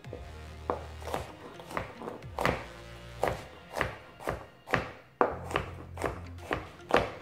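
Chef's knife dicing a green bell pepper on a plastic cutting board: sharp knocks of the blade on the board, about two a second, over background music.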